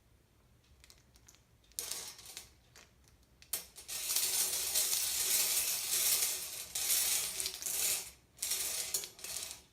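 Small hard objects rattling and clattering in a mechanism: a short clatter about two seconds in, then about four seconds of continuous rattling, and another burst near the end.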